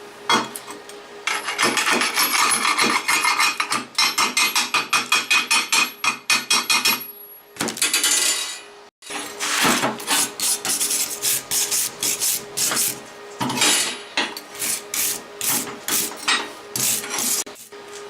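A hand tool scraping back and forth over the welded steel blade in quick, even strokes, several a second, in runs broken by a short pause about halfway through: cleaning up the fresh weld.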